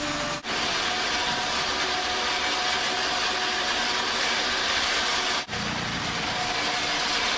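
Steady running noise of concrete block-making plant machinery: a dense, even hiss with a faint steady hum, briefly cut off twice where the footage is spliced.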